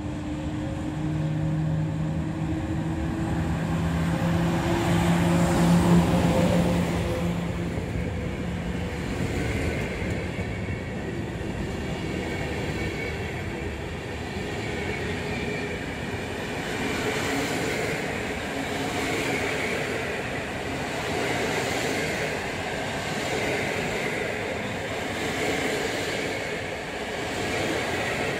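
Electric passenger train pulling in past the platform. The locomotive passes with a steady hum, loudest about six seconds in, and then the coaches roll by with a continuous rumble of wheels on rail.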